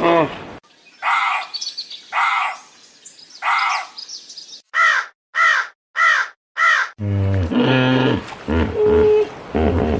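A crow or raven cawing: three harsh caws about a second apart, then four quicker arched calls. About seven seconds in, a different animal's deep, pitched calling cuts in.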